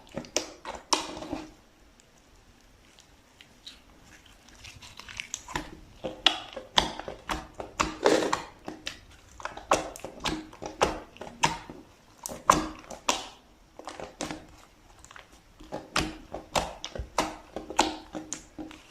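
Slime being squished and pressed, an irregular run of sticky pops, clicks and squelches, with a lull of a few seconds shortly after it starts.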